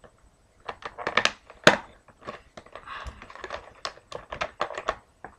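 Plastic blister packaging of an action figure being pulled and worked at by hand: an irregular run of sharp clicks and crinkles.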